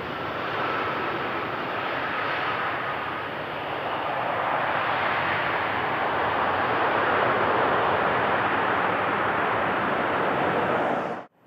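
Airbus A320 jet airliner's engines on arrival: a steady jet noise that grows louder through the middle, then cuts off suddenly near the end.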